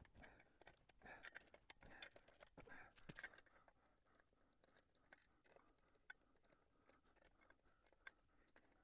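Faint, irregular clicking and scraping of a hand tool with a T50 Torx bit working the rear wheel bolts of a BMW R1200GS Adventure. The clicks are busiest over the first three seconds or so, then only an occasional tick.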